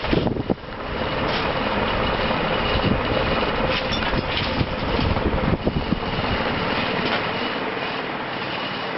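Mid-1980s NuTone Slimline ceiling fan with a cast-aluminum spinner motor running fast on its high setting with 48-inch metal Proline blades: a steady rush of moving air and motor noise with a faint steady hum, and a few low thumps in the first second. The owner says the fan has bearing noise, which he puts down to dirt in the bearings.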